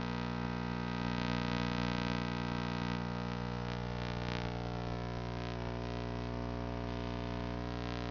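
Steady electrical hum: a buzz with many evenly spaced overtones that holds unchanged, with no speech.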